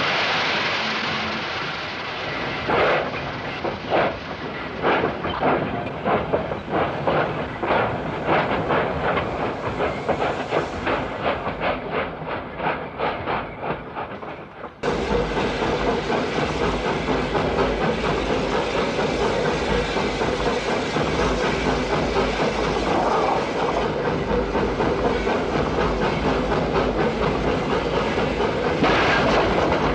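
Ithaca Central Railroad train passing close by, with branches striking it: a rapid, uneven run of sharp cracks and knocks. About halfway through this changes abruptly to a steady rumble and rattle of the passing cars.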